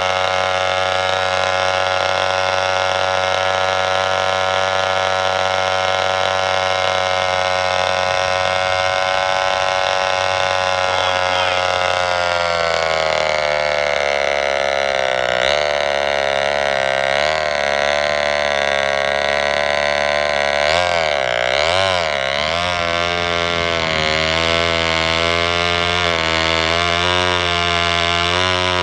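Two-stroke chainsaw engine running at high revs, driving a homemade belt-and-pulley cable winch. About 12 seconds in its pitch sags slightly, and from then on it wavers, dipping and recovering, as the winch takes load on the cable.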